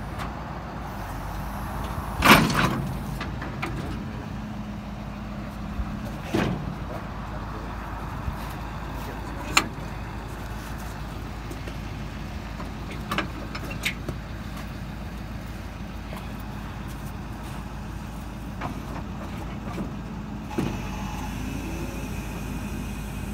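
Pickup truck engine idling steadily, with several sharp knocks over it, the loudest about two seconds in.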